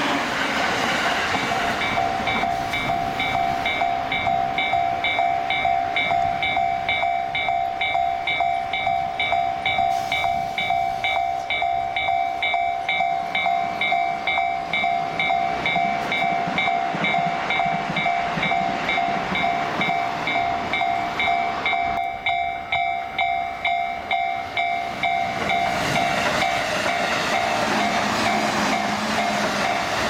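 Japanese level-crossing warning alarms, the JR and Keikyū crossings' electronic bells, ringing together in a steady pulsing ding-ding, each with its own tone. A JR commuter train rumbles past close by at the start, and another comes through near the end.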